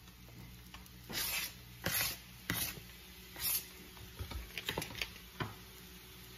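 A knife scraping chopped onion off a flexible plastic cutting board into a skillet: about four short scrapes, then a few light clicks and taps a little before the end.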